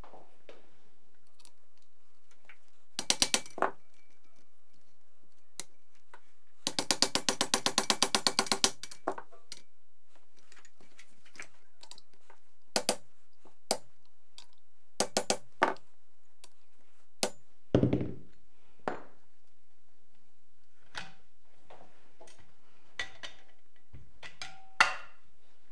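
Metal clicks and knocks of a PT-1 folding buttstock being fitted to a Vityaz-SN submachine gun with a screwdriver: a quick group of clicks about three seconds in, a rapid even run of about twenty clicks over two seconds, then scattered single clicks, a dull knock about two-thirds through and a sharp click near the end.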